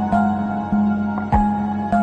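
Calm new-age background music: sustained notes, a new one about every half second, with a soft low beat about a second and a half in.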